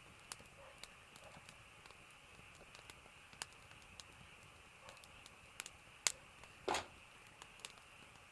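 Scattered light clicks and ticks at an irregular pace over a faint steady hiss, with one short louder noise about two-thirds of the way through.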